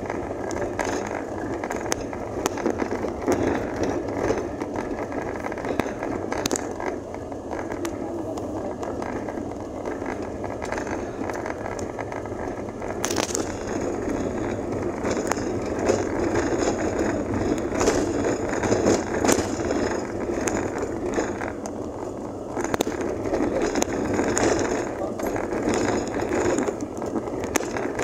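Wheels rolling and rattling over a rough, rutted dirt road, with scattered sharp clicks and knocks as the ride jolts along.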